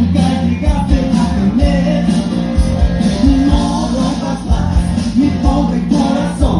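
Loud music with a strong bass line and a steady beat, played through a DJ sound system.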